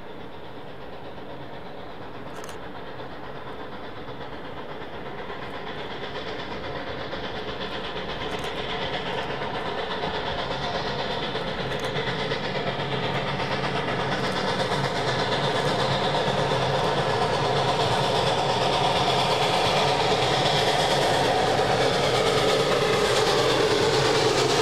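Narrow-gauge K-28 class 2-8-2 steam locomotive working a passenger train. Its running noise grows steadily louder as it approaches and passes close by, and the coaches are rolling past near the end.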